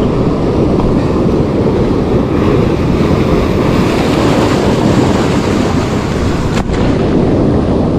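Sea surf washing against the rocks, mixed with wind buffeting the microphone: a loud, steady rush of noise.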